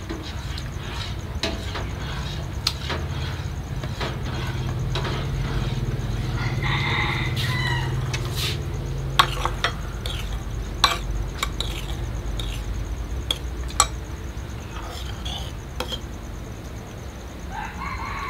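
Metal spoons clink sharply against ceramic bowls and a steel basin as coloured agar jelly mixture is scooped and poured, over a steady low hum. A rooster crows in the background about seven seconds in.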